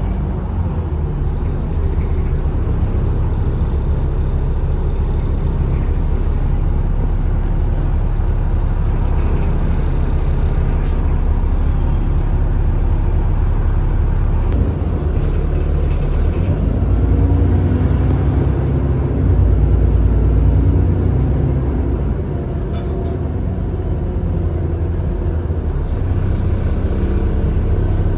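Alexander Dennis Enviro400 (E40D) double-decker bus running: a low engine rumble that swells for a few seconds past the middle. Over it, for about the first half and again near the end, a steady high whine, the vacuum-cleaner-like 'Hoover' noise this bus is known for.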